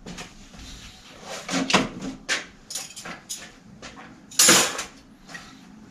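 Short clinks and knocks of parts being handled and shifted on workshop shelves, with one louder clatter about four and a half seconds in.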